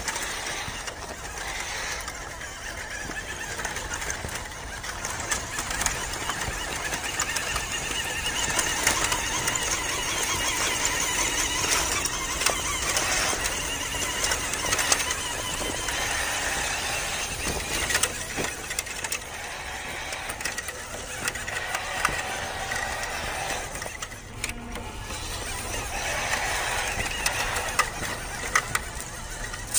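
WPL B-1 1:16 RC military truck's small electric motor and gearbox whining as it drives over dirt and gravel, the pitch wavering with the throttle, with scattered clicks and crunches from the tyres and drivetrain.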